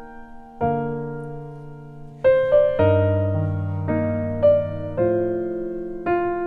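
Background music: a slow, gentle keyboard melody with notes and chords struck every second or so and left to ring and fade.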